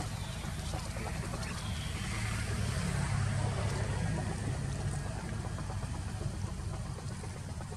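A motor engine's low, steady drone, swelling between about two and five seconds in and then easing off.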